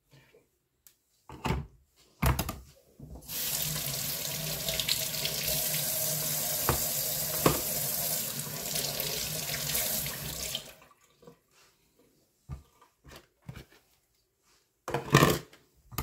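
Kitchen sink tap running for about seven seconds, a steady rush of water into the basin as a potato is rinsed under it. Two sharp knocks come before the water starts, and a few more knocks near the end.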